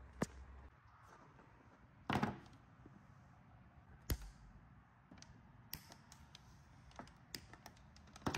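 A few faint, scattered clicks and knocks, with a louder, longer scuffing noise about two seconds in and small ticks near the end.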